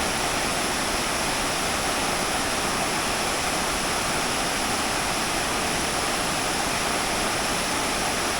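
Waterfall running full with rainy-season water: a steady, unbroken rush of falling water.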